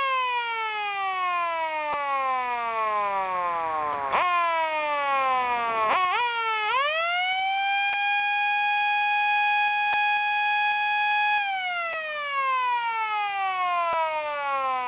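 Vintage police siren winding down in a long falling wail, blipped up briefly twice, about four and six seconds in. It then winds up to a steady high wail held for about four seconds, and near the end coasts down in pitch again.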